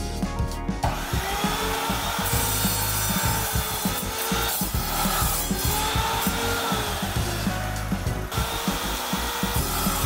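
Evolution mitre saw cutting through steel tube: a harsh grinding cutting noise with the blade's whine rising and falling as it bites. The noise eases briefly twice, about four and a half and eight seconds in.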